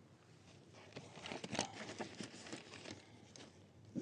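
Faint rustling of a nylon backpack's fabric and webbing being handled, with scattered light ticks.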